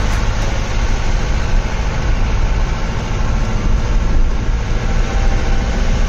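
Car engine and road rumble heard from inside a moving car: a steady, deep, even drone with no distinct events.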